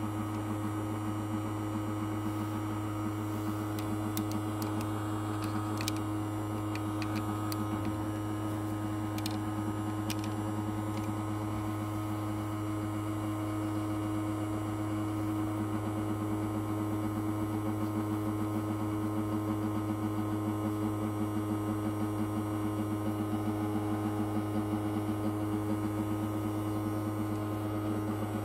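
Small ultrasonic cleaner running with coins in its water bath: a steady electric buzz over a faint hiss, with a few faint clicks in the first half.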